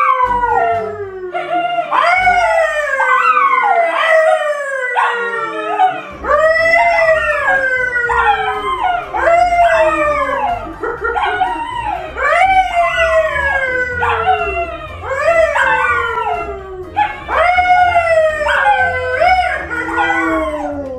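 A man and two dogs, a yellow Labrador and a brown poodle, howling together. The howls come about one a second, several voices at different pitches overlapping, and each one slides downward in pitch.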